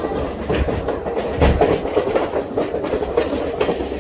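Train running along the track: a steady rumble with the wheels clicking and clattering over the rail joints, one louder clack about a second and a half in.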